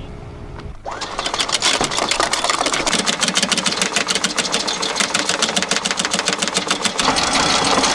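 Electric anchor windlass running, its motor whining up about a second in, then anchor chain clattering over the gypsy link after link in a rapid, even rattle.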